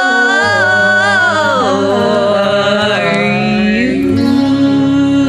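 A woman singing in layered three-part harmony with herself, holding out the final sung word as the voices glide down and settle into a sustained chord.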